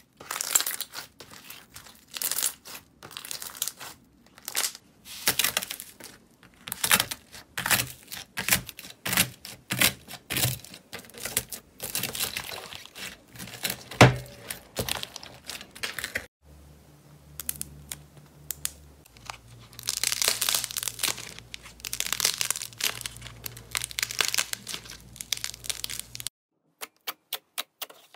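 Hands squeezing, pulling and pressing slime: a run of irregular crackling, crinkling bursts, easing off briefly about two-thirds through, then a quick even run of small clicking pops near the end.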